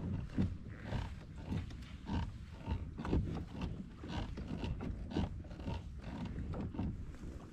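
Irregular low knocks and sloshing of water around a fishing kayak's hull, a few each second, with no steady engine or motor sound.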